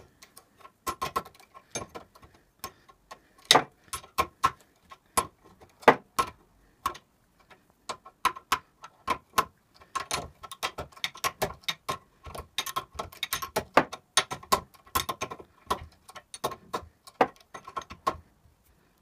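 Steel spanner clinking and clicking against an anodised AN hose fitting on a braided oil line held in a bench vise, in short, repeated tightening strokes: many irregular sharp metallic clicks with a slight ring, stopping shortly before the end.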